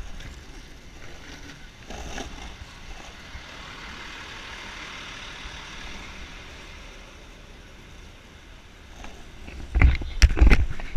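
Longboard wheels rolling on asphalt through city traffic: a steady rolling hiss with the surrounding cars, broken by loud low thumps and rumbles in the last second or so.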